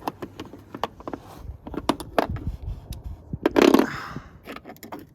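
Wrench working a size 13 nut tight: irregular metallic clicks and scrapes, with a louder rustling scrape about three and a half seconds in.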